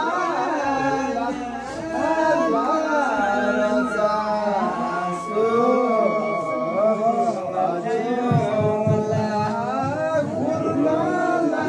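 A group of men singing a traditional Nyinba Lhosar song together, several voices overlapping in a long wavering melody.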